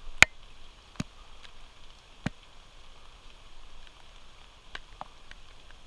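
A few sharp clicks and taps close to the microphone, the loudest about a quarter second in and others about one and two seconds in, over a steady faint hiss.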